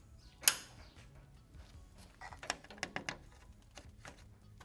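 Locking pliers snapping shut to clamp the mesh grille's metal mounting tab to the plastic grille shell: one sharp snap about half a second in, then a few lighter clicks and taps of metal on plastic around two to three seconds in.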